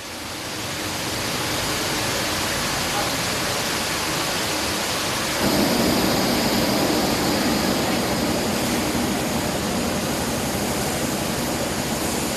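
A loud, steady rushing noise that fades in over the first couple of seconds and grows fuller and louder about five seconds in.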